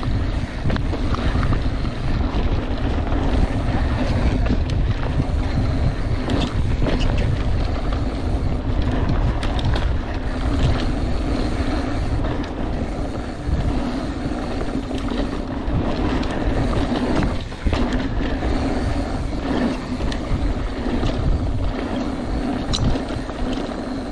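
Mountain bike rolling downhill on a dry dirt and rock trail: a steady rumble of tyres on the ground and the bike rattling, with wind on the microphone and scattered short clicks and knocks from the trail.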